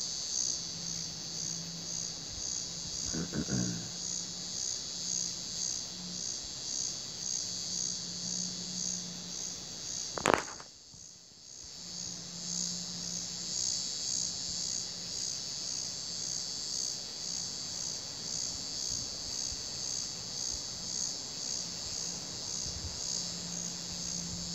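Evening chorus of crickets chirping in a steady, even pulse. A single sharp click about ten seconds in, after which the sound briefly drops away for a second or so before the chorus returns.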